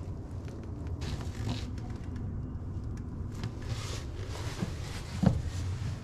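Handling noises from a PVC toilet drain pipe and flange being worked into place: short scrapes and rustles, and one sharp knock about five seconds in, over a steady low hum.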